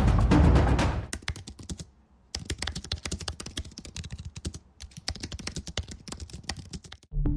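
Fast typing on a computer keyboard: quick runs of key clicks broken by short pauses. Music fades out about a second in, and new music starts near the end.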